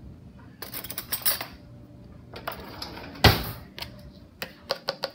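Kitchen clatter of dishware and cutlery being handled: a run of sharp clinks and clicks, with one louder knock about three seconds in.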